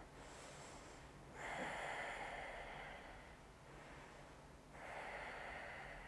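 A woman's slow, audible breathing, faint: soft hissing breaths a second or two long, one starting about a second and a half in and another near the end.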